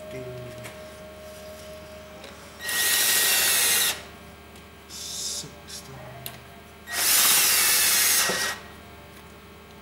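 A drill turning a socket runs twice, about a second and a half each time, running down the cylinder head bolts of a 200Tdi diesel engine to snug them before torquing.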